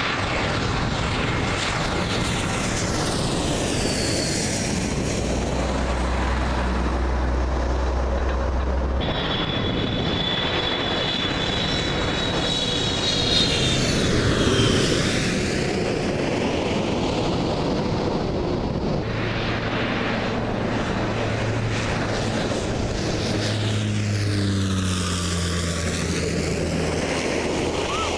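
Jet airliners on landing approach passing low overhead one after another, their engine noise sweeping down and back up in pitch as each goes over. It is loudest about halfway through, as a plane with its landing gear down passes directly above, and the sound changes abruptly twice where one pass gives way to the next.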